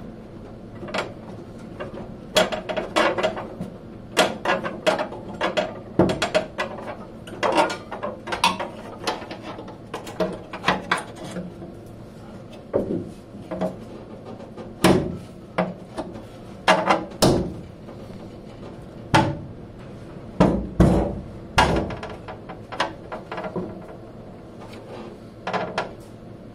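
Irregular clicks and knocks of a new copper fuel line being pressed into its metal retaining clips against a car's underbody, some knocks ringing briefly.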